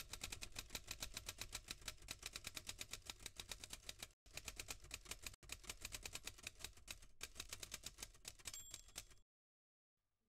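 Quiet typewriter keystrokes clacking in a rapid, even run, with two brief breaks a little after four and five seconds in. A short ring sounds near the end, and the keystrokes stop about a second before the end.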